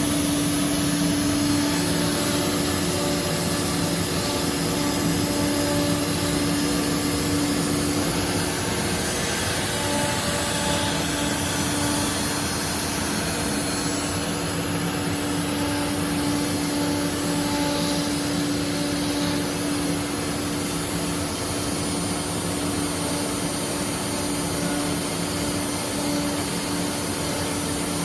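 ATC CNC router running: a steady machine whine with a constant hum and rushing noise, like a spindle and vacuum running together.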